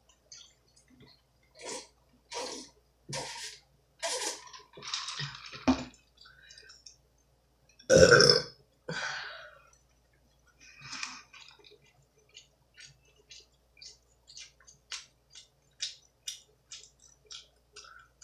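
A person eating pizza close to the microphone: wet mouth noises and a loud burp about eight seconds in, followed by a run of short lip-smacking clicks.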